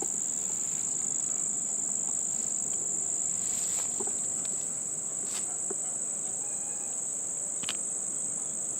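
Steady, unbroken high-pitched trilling of an outdoor insect chorus, with a few faint clicks along the way.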